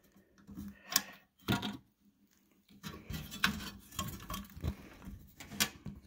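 Metal clicks, knocks and light rattling from a bandsaw blade being handled and clamped in a bandsaw blade welder: a couple of separate sharp clicks early, a short pause, then a busier run of small clicks and rattles.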